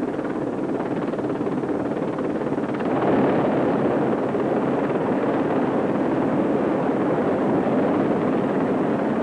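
Westland Sea King HAR3 search-and-rescue helicopter hovering: a steady rush of rotor and engine noise that grows a little louder about three seconds in.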